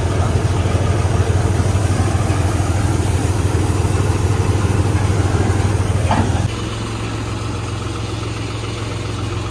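Diesel tractor engine running steadily with a deep hum. About six and a half seconds in, it drops abruptly to a quieter, steadier note.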